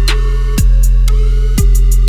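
Electronic outro music: a heavy sustained bass, deep kick drums that drop in pitch, about one a second, and crisp hi-hat ticks.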